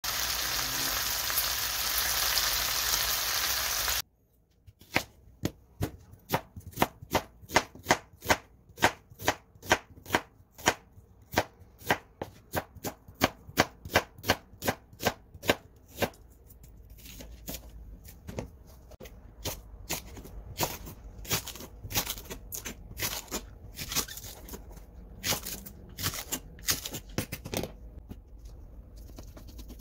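Pork stir-fry sizzling in a pan, cutting off suddenly about four seconds in. A knife slicing an onion on a plastic cutting board follows, sharp even cuts about twice a second, then quieter, irregular taps and handling on the board.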